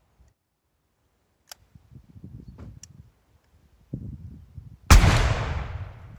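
A black powder gun fires once about five seconds in: a sharp blast with a long tail of reverberation dying away. Before it come a few faint clicks and low handling noise.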